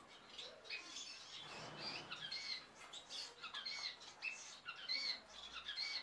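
Society finches (Bengalese finches) chirping: a faint, steady run of short, high calls, several a second.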